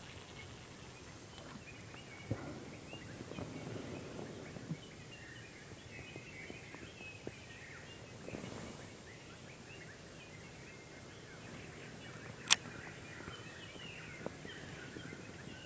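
Faint open-air background with light handling noises and faint high chirps. About three quarters of the way through comes one sharp click as fingers work a baitcasting reel.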